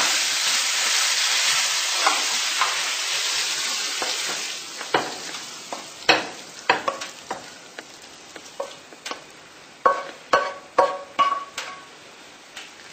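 Minced-meat filling sizzling in a hot frying pan, fading over the first few seconds. Then a spoon scrapes and knocks against the pan as the filling is scooped out, in a string of sharp taps, some of them ringing briefly.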